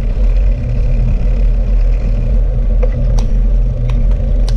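Steady low rumble of wind and rolling tyres on the bare built-in microphone of a GoPro Hero 5 riding on a bicycle over a wet street. A few sharp clicks and rattles from the bike come in the second half.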